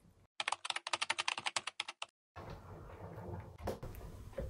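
A loud run of rapid, crisp clicks lasting nearly two seconds, with dead silence on either side of it. After that comes softer, irregular crunching as a cat chews dry kibble from a bowl.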